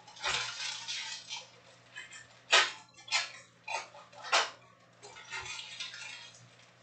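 Foil trading-card pack wrappers crinkling and being torn open by hand, with several sharp crackles in the middle.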